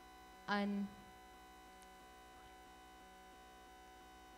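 Steady electrical mains hum in the recording during a pause in a reading. About half a second in, one brief voiced sound from the reader's voice cuts in, a short held hum under half a second long.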